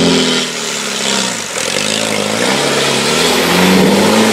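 Land Rover Defender engine revving hard as the truck drives down into a deep mud hole. The revs rise at the start, drop about a second and a half in, then climb again near the end.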